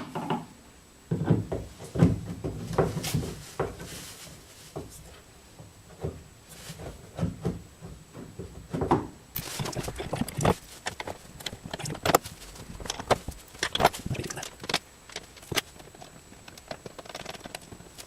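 Irregular knocks, clicks and scrapes of metal parts being handled and worked into place while the pedal box is fitted into the car.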